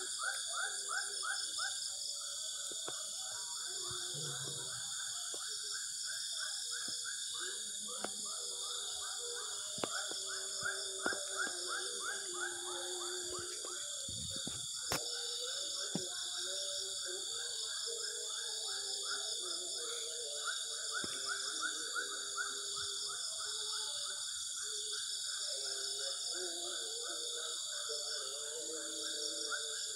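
Evening chorus of insects and other calling animals: a steady high insect drone, with a pulsing call repeated about three times a second and scattered lower calls beneath, broken by a few faint clicks.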